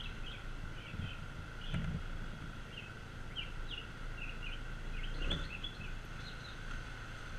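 Birds chirping in short, varied calls throughout, over the steady running of a moped's small engine with a constant whine. A few brief low rumbles come through, about one, two and five seconds in.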